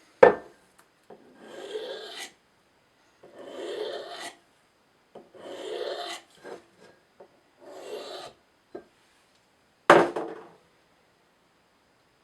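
Blade edge of an Emerson Mini Commander knife (154CM steel) being stroked across the unglazed ceramic ring on the bottom of a coffee mug, used as a makeshift sharpening stone to restore a dulled, chipped edge. There are four slow scraping strokes about two seconds apart, a sharp knock just after the start and a louder knock about ten seconds in.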